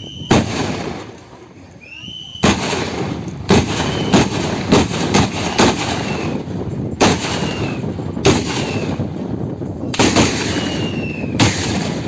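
Bacamarte blunderbusses, muzzle-loaded with black powder, fired in a ragged salvo: about eleven loud shots at uneven intervals, with a quick run of several close together in the middle.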